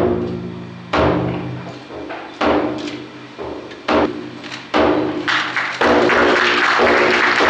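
Large shrine taiko drum struck in single beats about a second and a half apart, each ringing out, the beats quickening until they run into a continuous roll about five seconds in.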